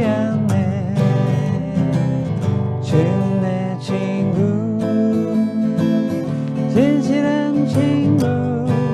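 Background music: a song with strummed acoustic guitar and a sung melody.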